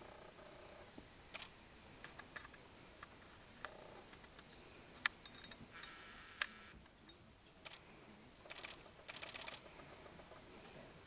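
Camera shutters firing: scattered single clicks, then quick runs of shots in burst mode, the longest near the end.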